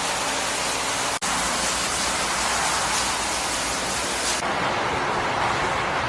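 Steady rushing noise of road machinery and vehicles moving under a temporary bridge deck, cut off for an instant a little over a second in and turning duller about four and a half seconds in.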